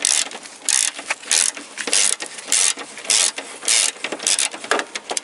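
Ratchet wrench with a 12 mm socket clicking in short bursts, about one and a half to two a second, as it is swung back and forth to undo a radiator mounting bolt.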